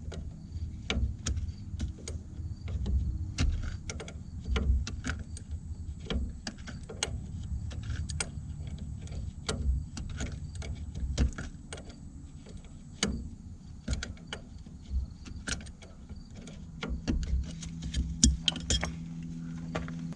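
Irregular metallic clicks and clinks of hand tools and metal parts being worked on the roller, over a steady low hum.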